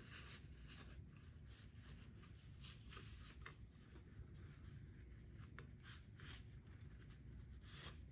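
Quiet, irregular scratching and scraping strokes, about a dozen, the last one near the end the loudest, over a steady low hum.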